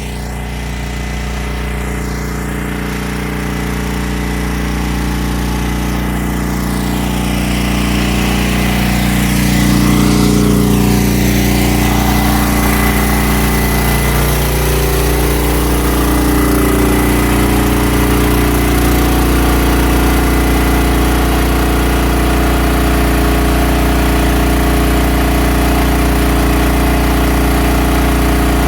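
Black Diamond portable gas generator running steadily under load, its engine hum growing louder over the first ten seconds or so, then holding level.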